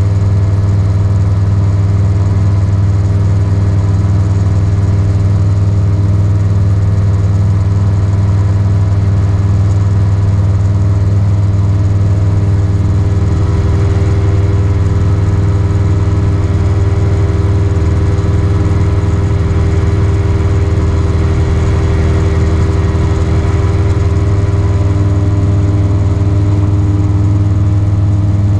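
Magni M24 gyroplane's engine and pusher propeller droning steadily in cruise flight, heard from inside the enclosed cockpit, with wind rush that grows somewhat in the middle.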